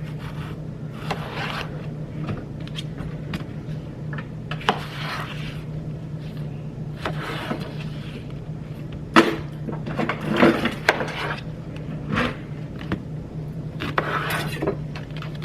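Intermittent scraping, knocking and rustling of objects being handled, over a steady low hum.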